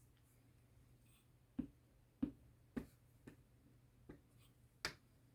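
Scissors snipping paper: a handful of short, separate snips spread over a few seconds, making a partial cut.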